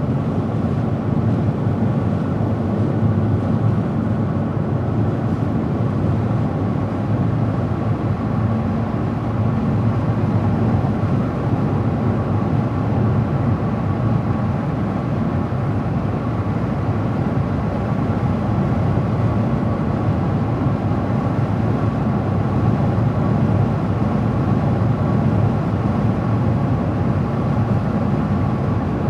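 Car driving at a steady cruising speed: a constant rumble of tyre and engine noise.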